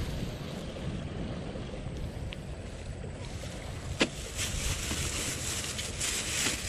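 Wind buffeting the microphone in a steady low rumble, with plastic bag rustling and one sharp click about four seconds in.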